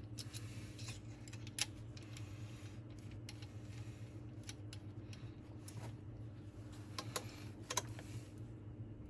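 Light metallic clicks and clinks, scattered and irregular, as an engine rocker arm is handled and seated on its rocker shaft under a dial indicator for a lift check, over a steady low hum.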